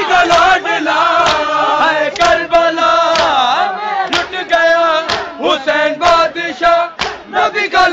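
A group of men chanting a nauha, a Shia lament for Husayn, together in one melody. Sharp strokes of matam chest-beating come through it at uneven intervals.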